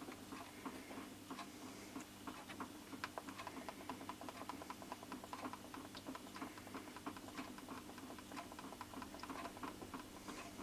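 Faint, irregular light ticks and clicks, several a second, over a steady low hum.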